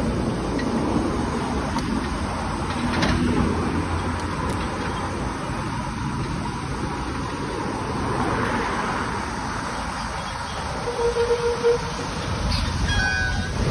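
Steady rushing road noise from riding a bicycle along a city road, with motor traffic passing. A brief pulsing tone comes near the end.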